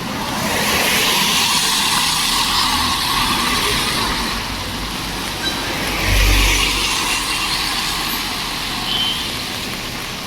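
A motor vehicle passing close by: a swell of hissing road noise, with a short low rumble about six seconds in.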